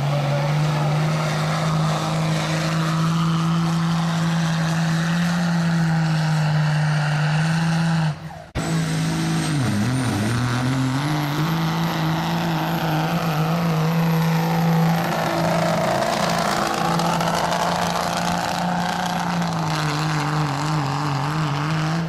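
Dodge Ram pickup's Cummins turbo-diesel running flat out under load while pulling a weight sled, a steady high-revving drone. It breaks off briefly about eight seconds in, then the engine dips and climbs back as a high turbo whistle rises.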